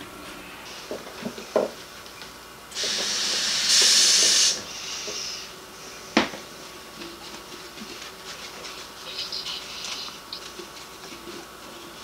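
Dishes being washed by hand in a sink of soapy water: clinks and knocks of crockery, with a kitchen faucet running for about two seconds near the start, the loudest sound, getting louder partway through before it stops.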